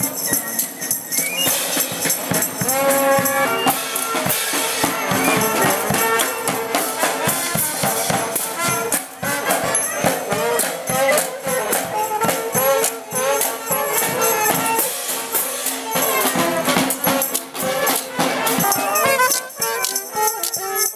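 Small street marching band playing a tune: trumpets, trombone and saxophone carry the melody over a bass drum and steady percussion strokes.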